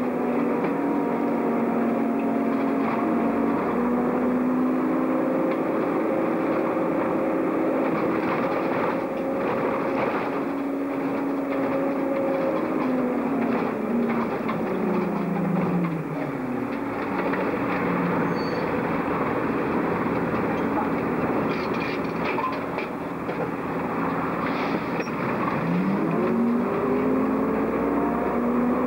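Bus engine and transmission running on the move, heard from inside the cab: its whining tones step through gear changes, fall in pitch about halfway through and climb again near the end.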